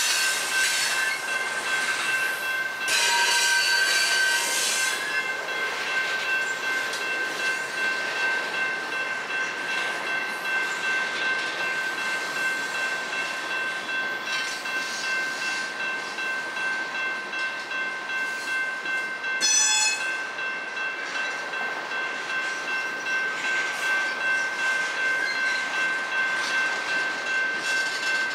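Freight cars of a long manifest train rolling past on jointed track, with steady high-pitched wheel squeal over the rolling noise. The squeal gets louder for a couple of seconds about three seconds in, and there is a brief sharp squeal near two-thirds of the way through.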